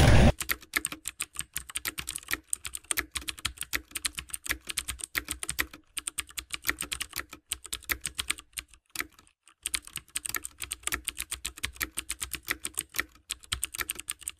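Typing sound effect: a steady patter of rapid key clicks with a few short pauses, the longest about two-thirds of the way through.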